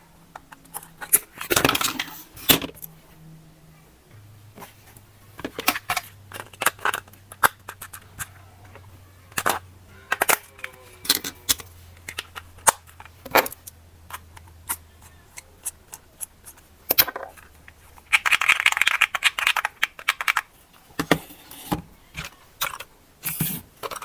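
Hands handling small plastic toy parts and packaging: scattered clicks and taps, with a burst of rustling about three quarters of the way through.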